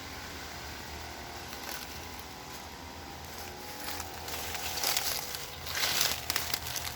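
Rustling and crackling handling noise, irregular and growing louder in the second half, over a faint steady hum.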